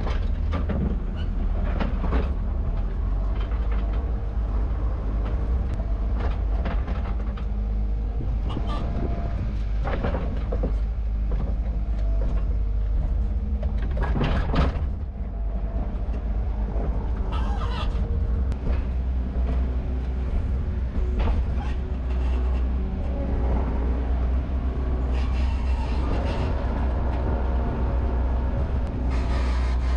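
Skid steer loader engine running steadily, heard from the cab, with scattered knocks and clanks from the loader arms and attachment.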